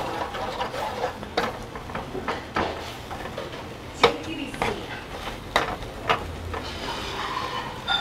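Metal spoon scraping and knocking against a wok while fried rice is stirred, with sharp clinks every second or so.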